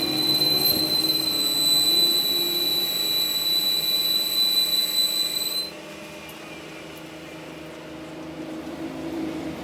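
A workshop machine running with a steady high-pitched whine over a lower hum; the whine cuts off suddenly a little over halfway through, leaving a quieter hum.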